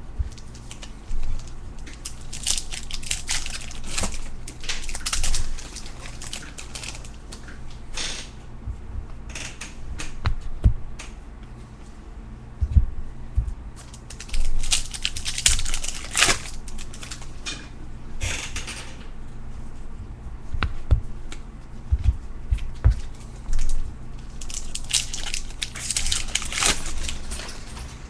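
Baseball card pack wrappers crinkling and tearing in irregular bursts as packs are opened, with scattered knocks from cards and packs being handled.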